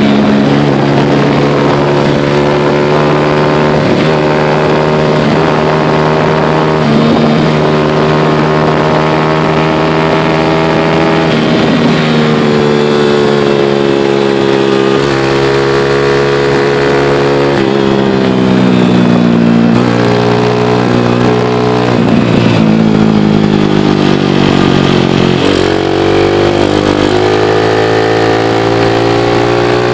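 Motor vehicle engine running steadily under way, its pitch sliding down and back up several times, with the deepest dip and recovery about 25 seconds in.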